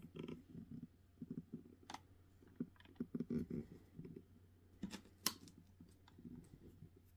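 Faint handling noise: scattered small clicks and soft rustles at irregular intervals over a steady low hum, with the sharpest clicks about two seconds in and about five seconds in.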